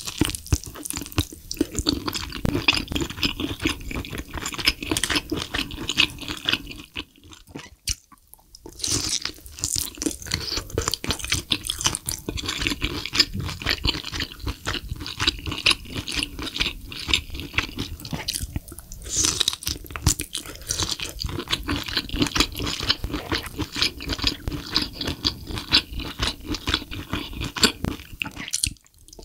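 Close-miked chewing of spicy braised lobster tail meat coated in sauce: a dense, continuous run of small mouth clicks and eating noises, with a short pause about a quarter of the way through.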